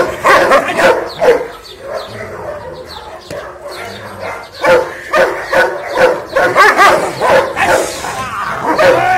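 Muzzled German Shepherd barking aggressively in rapid volleys at a man provoking it in protection training. The barking eases off about two seconds in, then starts again, dense and fast, about five seconds in.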